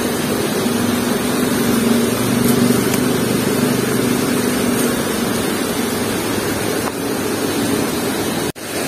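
Steady rush of a shallow river flowing over rocks, with a faint low hum in it. The sound cuts out for an instant near the end.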